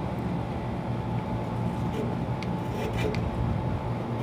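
Steady low hum of running air-conditioning equipment, with a few faint clicks about halfway through.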